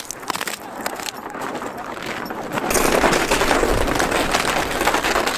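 Wind buffeting the camera microphone on open ice, with dense crackling and a deep rumble that grows louder a little over halfway through.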